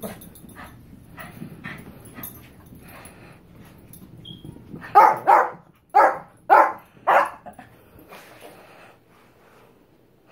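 Shih Tzu dogs barking: about five sharp barks in quick succession around the middle, with fainter short yips before them.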